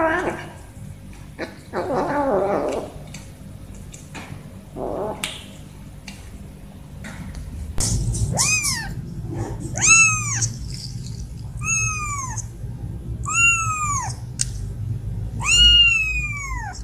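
A kitten meowing five times in the second half, high-pitched calls that each rise and then fall in pitch, coming roughly every one and a half to two seconds. Before that come a few short, rough sounds.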